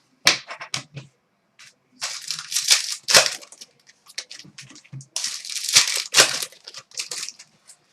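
Trading cards and their pack wrappers being handled: irregular crinkling, rustling and sliding in short bursts.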